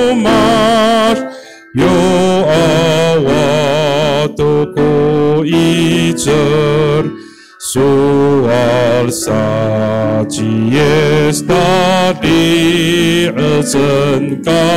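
A man singing a hymn in Amis into a handheld microphone, his voice wavering with strong vibrato on held notes. He breaks off briefly about a second in and again about seven seconds in.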